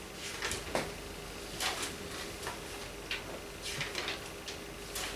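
Scattered light clicks and knocks, about a dozen short sharp ones spread unevenly through the pause, over a steady faint hum of room tone.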